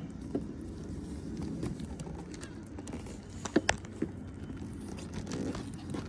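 Handling noise from the camera and a light being repositioned: scattered light taps and clicks over a low background noise, with two sharper clicks about three and a half seconds in.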